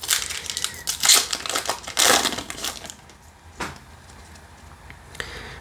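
Foil trading-card booster pack crinkling and tearing as it is ripped open by hand, in several loud crackling bursts over the first three seconds. After that come quieter rustles of the cards being handled, with one small click.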